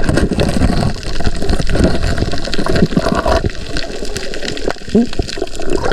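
Sea water sloshing and gurgling close to the microphone, with a dense crackle of bubbles and a low rumble, as a snorkeller moves through shallow water.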